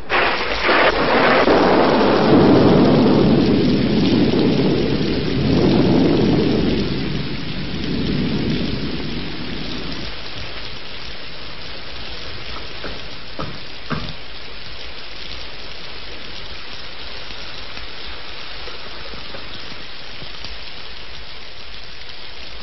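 A clap of thunder breaks at once and rolls for about ten seconds before dying away, over a steady downpour of rain that carries on.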